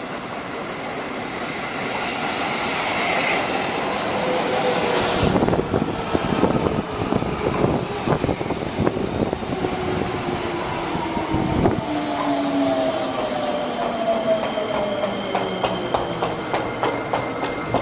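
Seibu 20000 series electric train pulling into a station: wheels clattering on the rails, with a whine that falls steadily in pitch as the train brakes. Evenly spaced wheel clacks over rail joints come near the end as it slows toward a stop.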